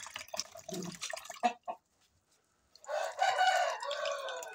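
Water dripping and splashing in a plastic basin as a rooster's feet are washed by hand. Near the end a rooster crows once, for about a second and a half.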